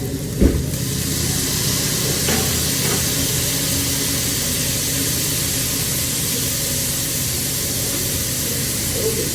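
A brief thump, then a steady hiss of seafood sizzling on a grill, over a low steady hum.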